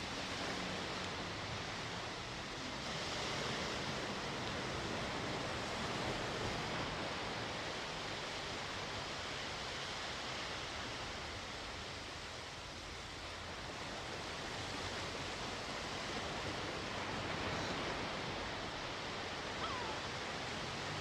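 Sea waves washing onto the shore: a steady surf hiss that swells and eases every few seconds, with a brief faint click near the end.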